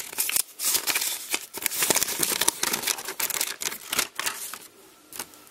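A folded paper leaflet being unfolded and handled: crisp paper rustling and crackling with many small sharp clicks, dying down near the end.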